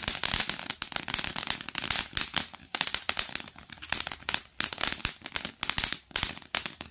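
Diamond Fireworks mini fountain burning, spraying sparks with a steady hiss and a dense, irregular crackle.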